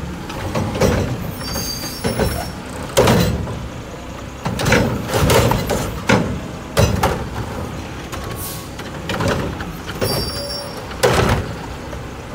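Diesel engine of a Mack LR garbage truck running while the Heil Curotto-Can arm grabs, lifts and tips a trash cart, with a series of sharp clanks and bangs from the arm and cart.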